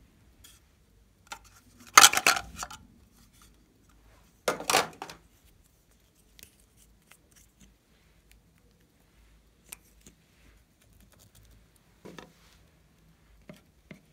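Hard plastic toy containers being handled: two loud clattering bursts about two and five seconds in, then light scattered plastic clicks and taps.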